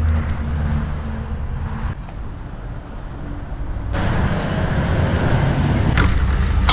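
Truck engine running at low speed as the truck manoeuvres in. It eases off for about two seconds in the middle, then picks up again, with a couple of light knocks near the end.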